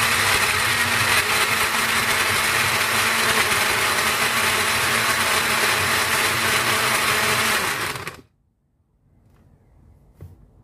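Countertop blender running at a steady speed, blending a fruit, milk and yogurt smoothie, then switched off and cutting out sharply about eight seconds in.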